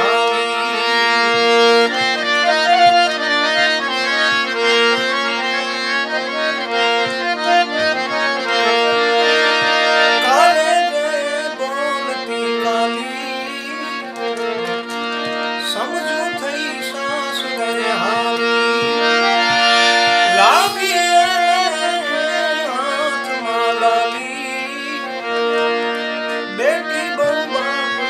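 Harmonium playing a folk melody over steady held drone notes.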